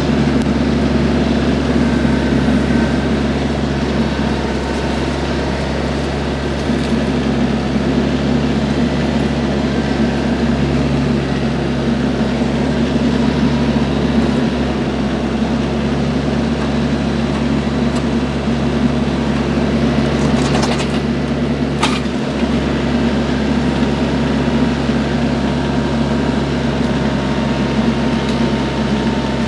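Compact diesel tractor engine running steadily, with two brief sharp cracks about two-thirds of the way through.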